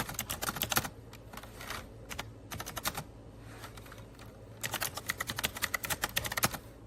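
Typing on an AULA F2088 mechanical keyboard with clicky blue switches: rapid key clicks in bursts, sparse in the middle and a fast run near the end.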